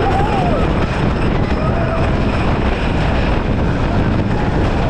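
Gravity Group Timberliner train running at speed on a wooden roller coaster track: a loud, steady rumble of wheels on wood mixed with rushing wind on the microphone. A few faint rider shouts glide over it near the start and about a second and a half in.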